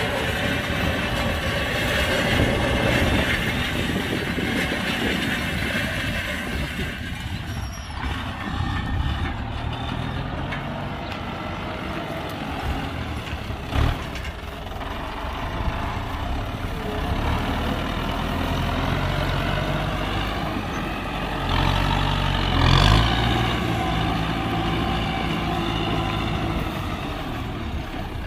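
Kubota M9540 tractor's four-cylinder diesel engine running steadily under load while pulling a disc harrow through dry soil. A short knock sounds about halfway through, and the engine grows louder a little later.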